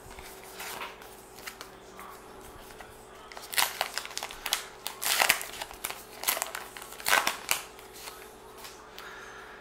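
Wrapper of a 2019 Gypsy Queen baseball card pack being torn open and crinkled by hand: a run of sharp crackly rips and rustles for about four seconds through the middle.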